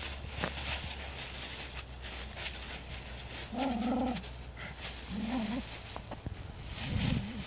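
Westie terrier nosing and sniffing through dry fallen leaves, the leaves crackling and rustling around its muzzle. The dog gives three short low whimpers, about halfway in, a second later, and near the end.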